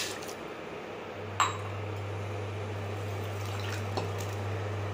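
Water poured from a glass into a steel saucepan of sugar trails off at the start, followed by a sharp clink about a second and a half in and a softer one near four seconds. A steady low hum starts about a second in.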